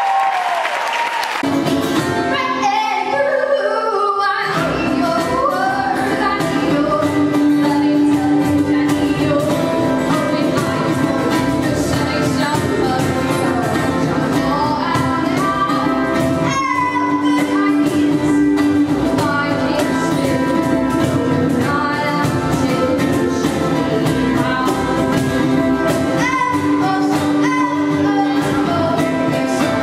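Live acoustic band playing a song: a woman singing over acoustic guitar, upright bass and a cajon box drum, starting about a second in.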